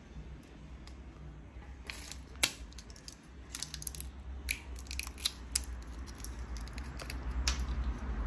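Brittle shells of ripe tamarind pods cracking and snapping as they are peeled off by hand: a scattering of sharp snaps starting about two seconds in, over a low steady hum.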